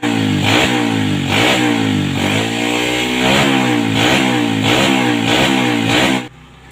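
Motorcycle engine revved repeatedly, its pitch climbing and falling about once a second; it cuts off suddenly near the end.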